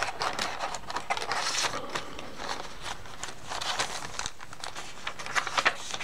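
Paper rustling with scattered light taps and clicks as the pages and tucked-in cards of a handmade paper journal are handled and turned.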